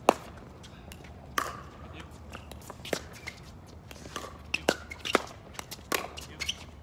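Sharp pops of a pickleball striking a paddle and bouncing on a hard court, several at irregular intervals, the loudest right at the start, with footsteps on the court.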